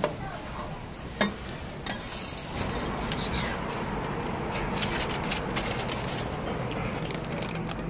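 A knife cutting through a crisp jianbing on a flat griddle, the blade knocking the griddle twice in the first second or so. From about three seconds in, a paper bag crinkles as the jianbing is packed into it, over a steady hiss.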